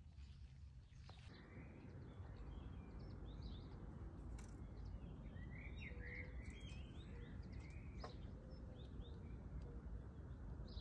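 Garden birdsong: many short chirps and calls, busiest between about five and seven seconds in, over a faint, steady low background noise.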